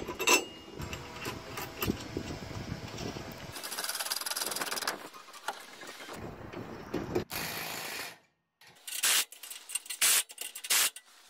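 Steel brackets and bolts clinking and scraping as they are fitted by hand. After a short break, a cordless impact driver runs in several short, loud bursts near the end, driving a bolt through a socket.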